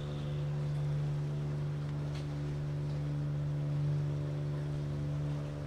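Ship's engines droning steadily across the water: a deep even hum with several steady tones layered above it.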